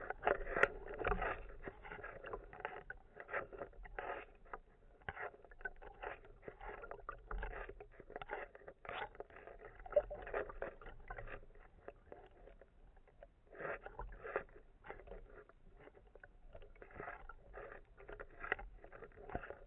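Sea water sloshing and splashing at the surface, picked up through a waterproof camera housing on a speargun as an irregular run of crackles and splashes.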